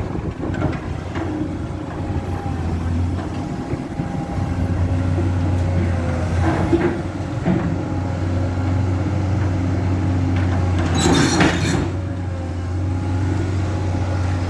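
Komatsu PC200 excavator's diesel engine running steadily, with a few clanks and one harsh burst of noise lasting about a second, about eleven seconds in.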